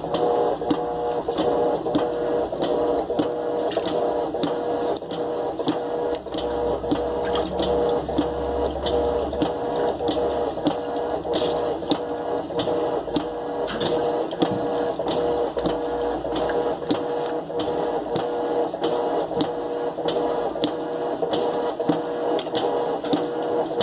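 Electrolux LTE12 top-loading washing machine running: a steady motor hum with regular clicking throughout and a low rumble through the middle.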